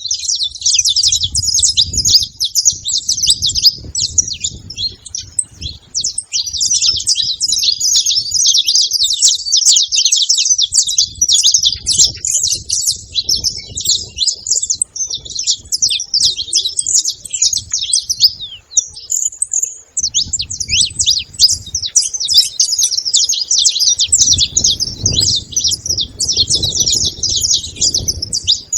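Several saffron finches chirping and calling in a dense, fast, high-pitched chatter, with two brief lulls.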